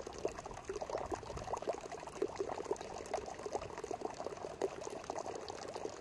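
Faint trickling water: a dense, irregular spatter of small splashes over a light hiss.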